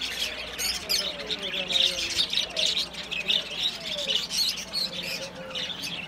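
A caged flock of budgerigars chattering and chirping all at once: a constant tangle of many quick, overlapping high chirps and squawks.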